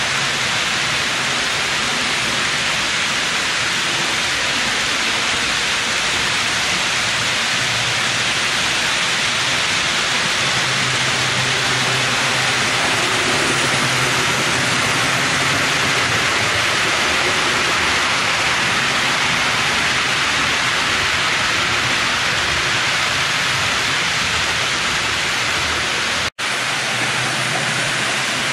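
HO-scale model trains running on the layout: a steady rushing rolling noise with a low hum underneath, broken by a sudden brief dropout near the end.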